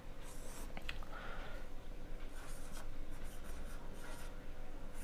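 Marker pen writing on a whiteboard: a run of short scratchy strokes as letters are written out.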